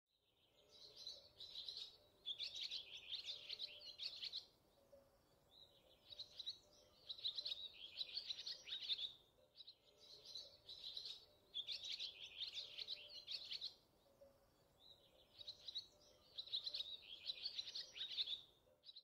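A songbird singing in phrases of rapid, high chirps, each phrase lasting about four seconds, with four phrases in all separated by short pauses.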